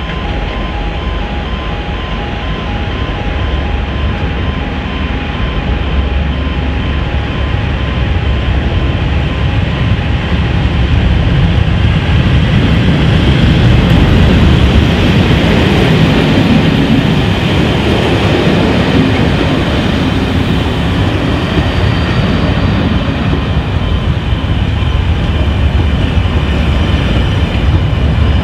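Colas Rail class 37 diesel locomotive, with its English Electric V12 engine, approaching and passing close by. The sound grows louder to a peak about halfway through as the locomotive goes past, then the yellow inspection coaches rumble by on the rails.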